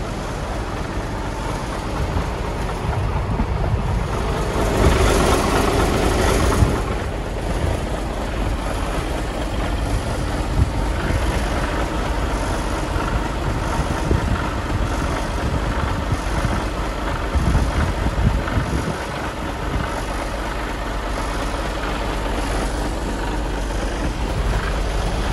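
Mercedes Actros 2445 tractor unit's 450 bhp Euro 6 diesel engine idling with a steady low rumble. A brief louder rush of noise comes about five seconds in.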